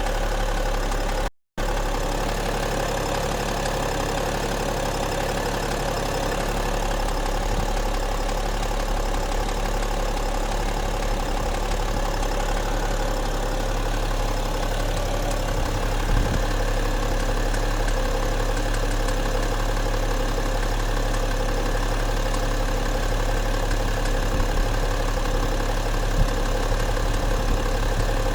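BMW X5 E70's M57N2 straight-six turbodiesel idling steadily, with a few faint ticks standing out; these are the extraneous knocks or clicks being checked for in the engine. The sound cuts out briefly about a second and a half in.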